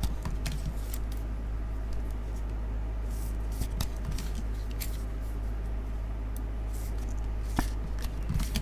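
Sports cards in rigid clear plastic holders being handled and shuffled on a table: scattered light clicks and brief plastic rustles, with a sharper click near the end, over a steady low hum.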